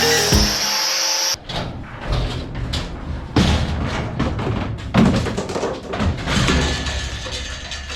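The music and steady high chirping stop abruptly about a second in. After that comes an irregular run of knocks, thumps and clatter from objects being handled and set down, with the loudest bangs a few seconds apart.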